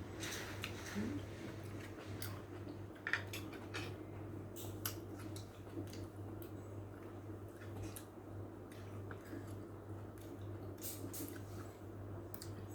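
A person chewing a mouthful of spicy corn salad with wet smacking and scattered short clicks, over a steady low hum.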